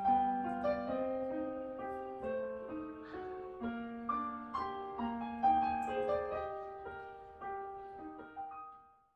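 Solo piano music: a gentle melody over slow lower notes, fading out near the end.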